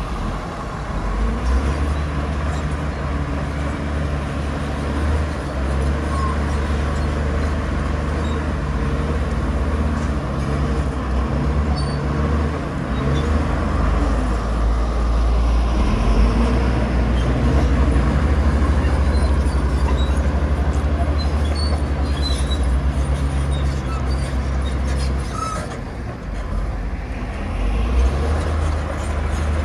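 Bulldozer's diesel engine running steadily under load as it pushes soil, a deep drone that eases off briefly near the end and then picks up again.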